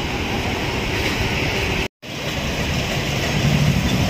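Steady roar of road traffic at a busy junction. It drops out for an instant about halfway through, then a low engine rumble from a vehicle idling close by grows louder toward the end.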